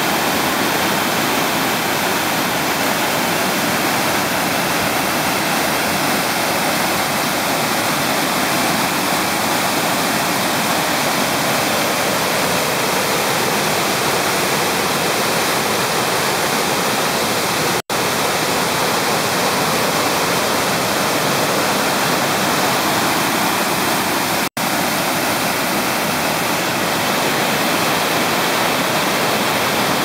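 Waterfall cascading down a rock face: a steady, loud rush of falling water that cuts out for an instant twice in the second half.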